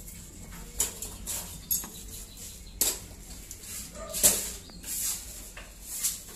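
Irregular short scrapes and rustles from handling work on the door, with a brief squeak about four seconds in.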